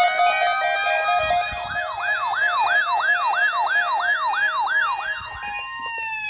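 A siren sounding: its tones hold high, then switch to a fast up-and-down wail about three times a second. Near the end the pitch winds down.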